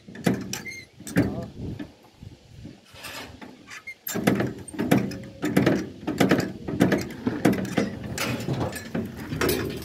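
A river ferry's cable gear creaking and clanking as the ferry is hauled along its cable: a few separate knocks, then a denser irregular run of clanks and creaks from about four seconds in.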